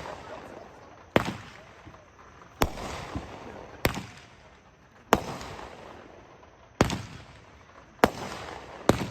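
Dominator '2 Min Block Party' firework cake firing: a sharp bang about every second and a half, seven in all, each trailing off in a fading echo.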